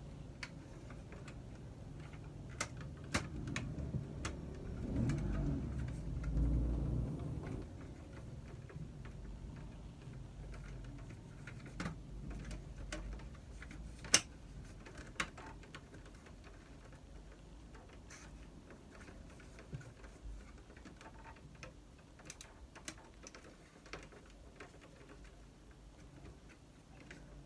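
Hands handling a partly disassembled Samsung ML-1660 laser printer's plastic frame and sheet-metal side plate: scattered irregular clicks and taps, a low rumbling handling noise for a few seconds about five seconds in, and one sharp click about halfway through.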